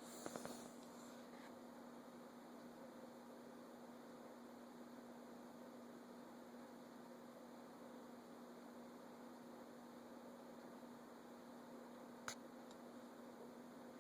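Near silence with a steady low electrical hum, a few faint clicks in the first second and one sharp click near the end.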